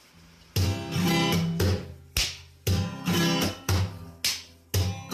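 Background music with a strummed guitar: chords struck in a steady rhythm, each ringing and fading before the next.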